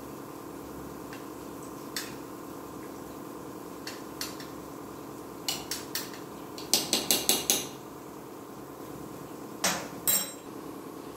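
Stainless steel spoon stirring in an aluminium pressure cooker and clinking against its sides and rim. Scattered single taps give way to a quick run of about six clinks a little past halfway, then two louder knocks near the end.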